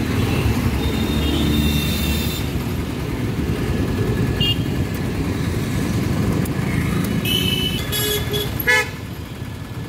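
Stopped city road traffic with a steady rumble of engines and several vehicle horns honking: short high toots about a second in and again around seven to eight seconds, then one louder horn blast near the end.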